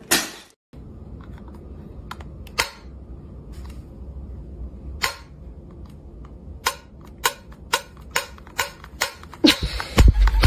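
A run of sharp taps or clicks after a loud hit at the very start. The taps are sparse at first, then come faster, two or three a second, over the last few seconds, with a low rumble near the end.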